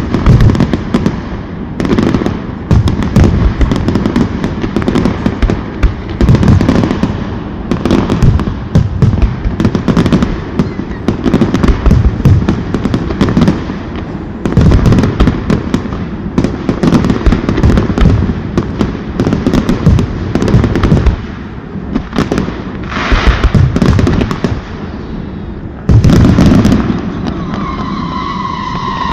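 Fireworks display: rapid, continuous bangs and crackles from many shells going off together, with loudness rising and falling. Near the end a steady pitched tone takes over.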